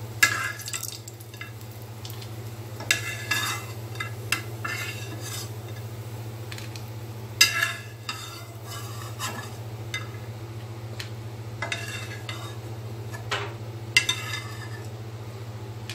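Metal slotted spatula scraping and clinking against a frying pan as fried cashews are scooped out of the hot fat, in short irregular strokes every second or two, over a light sizzle.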